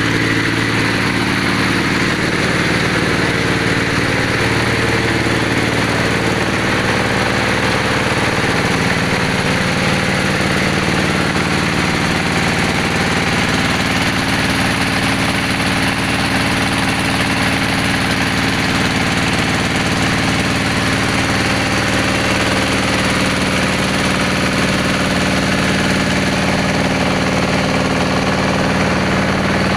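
Engine of a bore-well drilling machine running steadily, its pitch drifting slightly.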